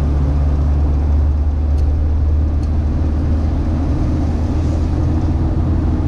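Steady low drone of a car driving through snow, heard from inside the cabin: engine hum and tyre and road noise, with an even rushing noise over it.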